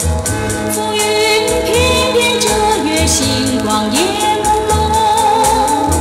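Recording of a vintage Mandarin pop song: a melodic line over a steady beat and bass, with a long held note near the end.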